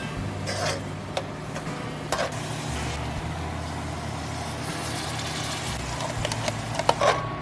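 Steady low mechanical hum with a few short, light knocks.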